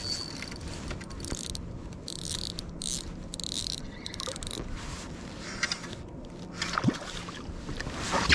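Spinning reel sounding in a series of short high-pitched bursts about a second in, as a hooked bass is fought from a kayak, with rod-and-reel handling noise throughout.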